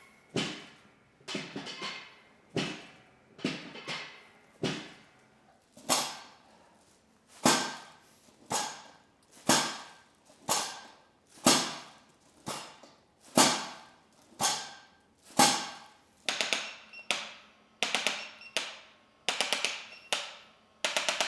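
A series of sharp knocks, about one a second, each ringing out briefly, with quick runs of three or four knocks near the end.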